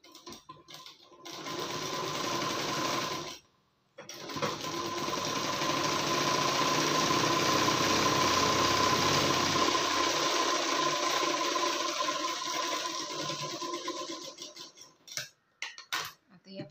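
Domestic sewing machine stitching through blouse fabric. It makes a short run, stops briefly, then makes a long steady run of about ten seconds that eases off near the end, followed by a few sharp clicks.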